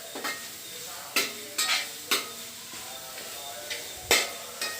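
A utensil stirring and knocking against a pan in sharp, irregular clicks, over the faint sizzle of chili powder roasting.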